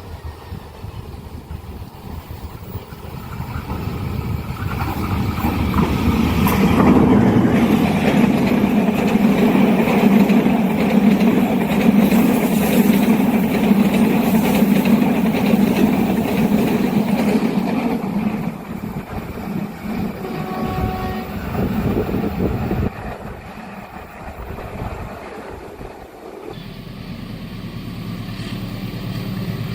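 A train passing at speed: the rumble of locomotive and wheels on the rails swells over the first few seconds, stays loud for about ten seconds, then fades away.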